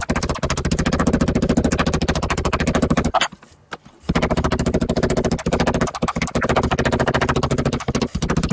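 Studded metal meat tenderizer mallet pounding a raw pork steak flat on a wooden cutting board: a fast, steady run of strikes, several a second, with a short break about three seconds in. The meat is being beaten to an even thickness.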